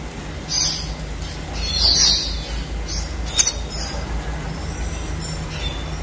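Red siskin giving a few short, separate high chirps. The loudest comes about two seconds in, with more near the start, the middle and faintly near the end, over a steady low background hum.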